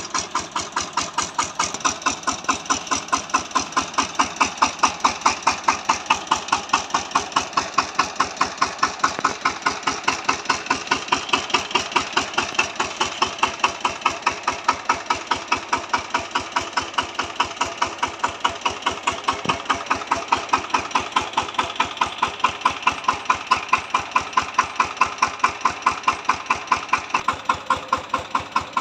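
VST Shakti 130 DI power tiller's single-cylinder diesel engine running at idle with a steady, even beat.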